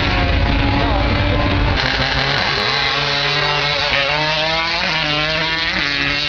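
Drag racing car engines running loud. About two seconds in the sound changes abruptly, and after that the engine pitch rises and falls in waves as the engines rev.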